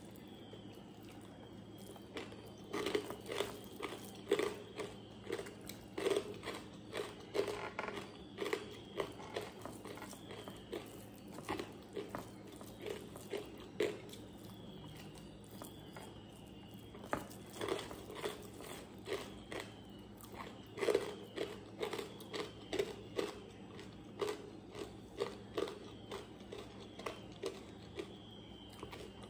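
Close-up eating sounds: a mouthful of rice and dal chewed with crisp crunching, in two long bouts of quick chews with a pause between them.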